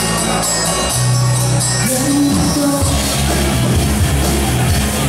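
Live rock band playing loudly: bass, drums and electric guitar, with a voice singing over them.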